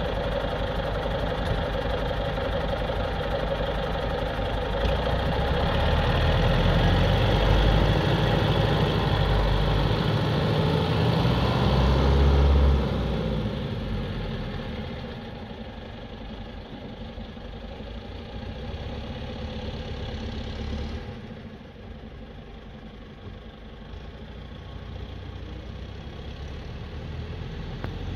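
Ikarus 211 bus's IFA W50 diesel engine idling, then revving louder as the bus pulls away about five seconds in. The sound drops abruptly about thirteen seconds in and fades as the bus drives off across the field.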